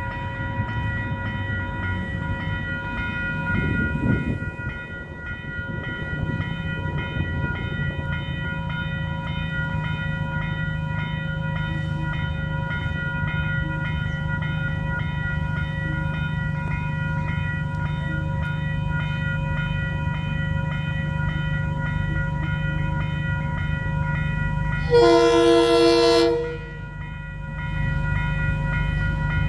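Level crossing alarm bells ringing steadily while an approaching diesel locomotive's low engine drone builds. The locomotive's horn sounds once, loud, for about a second and a half, near the end.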